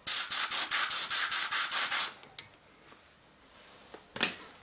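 Compressed-air blow gun blowing dust out of a car's front brake caliper: a loud, high hiss lasting about two seconds that flutters rapidly, then stops. A few light clicks follow near the end.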